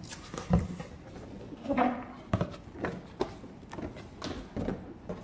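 A large cardboard toy box being handled and opened: irregular knocks, thumps and scrapes of cardboard as the box is turned and its flaps pulled open. The sharpest knock comes about half a second in.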